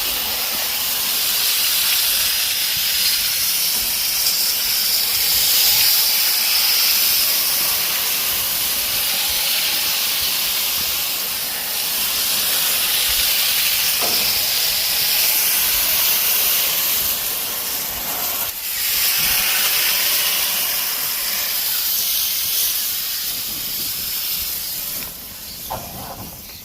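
Pressure washer spray hissing steadily as water blasts a surface. It breaks off briefly about two-thirds of the way through and tails off near the end.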